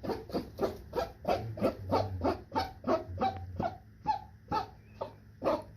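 A dog sneezing over and over in a fit, short sharp sneezes following each other about three to four a second.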